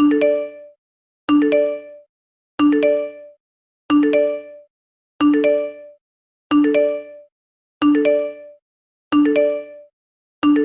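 iPhone text message alert tone: a short chime of three rising notes, repeated about every 1.3 seconds.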